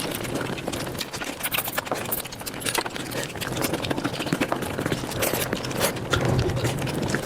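Mukbang eating and chewing sounds played back sped up: a dense, continuous run of quick crunches and mouth clicks.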